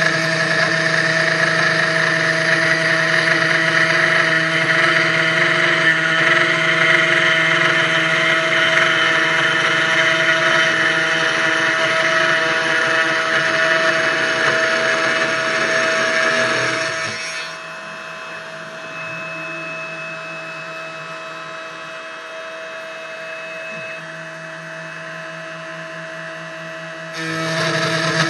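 CNC 1610 Pro desktop router running a 3 mm end mill, a steady whine of several tones over a grinding noise, taking shallow cutting passes. About two-thirds of the way through it drops to a much quieter hum for about ten seconds, then comes back at full level just before the end.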